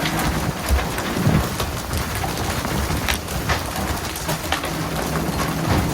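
Dense, steady water splashing and spraying, with a low rumble underneath and many scattered sharp knocks and splashes.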